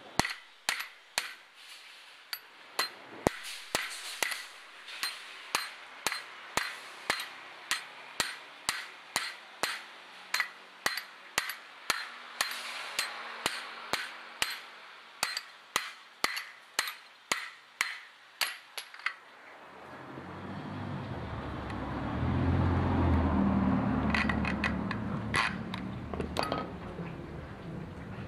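Hammer blows on metal, a steady run of sharp taps about two a second. Near the end a low rumbling noise swells and fades, with a few more taps over it.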